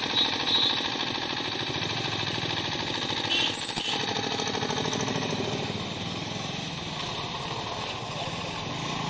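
Motorcycle engine running with a rapid pulsing note while riding, with road and wind noise. A short high-pitched sound comes in about three and a half seconds in.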